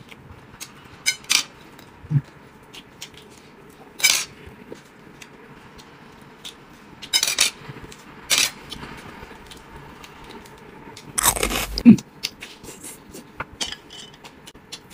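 Tableware clicks, clinks and scrapes as a man eats grilled skewers: chopsticks and skewers knocking against plates in short, scattered strokes, the loudest cluster about eleven seconds in.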